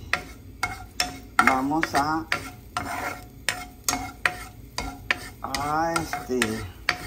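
A plastic spoon stirring and scraping minced garlic frying in oil in a nonstick frying pan: irregular clicks and scrapes of the spoon against the pan over a light sizzle.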